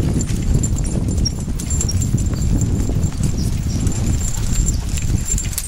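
Two-wheeled dog sulky rolling over a concrete sidewalk behind a pair of trotting Portuguese water dogs, a steady low rumble. Small jingle bells on the tip of the sulky's flag tinkle faintly over it.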